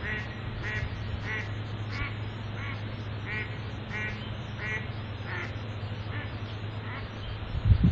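Mallard duck quacking: a long, even series of quacks, about three every two seconds, fading toward the end. A low hum runs underneath, and there is a brief low bump near the end.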